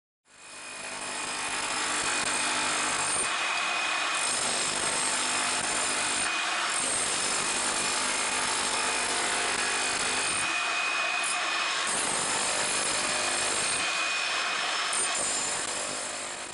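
Power tool working on concrete, running steadily with a few brief changes in its sound.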